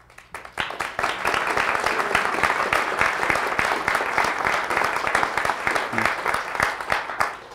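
Congregation applauding: many hands clapping, swelling within the first second, holding steady, then dying away near the end.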